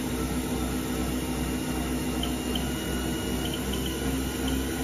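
Haas VF-0E CNC mill spindle running at roughly 3,500 to 3,900 rpm, in the speed band where it sounds rough: a steady hum with a low pulsing throb. The speed is hunting in this band, which the owner puts down to a very loose encoder belt and a possibly worn pulley.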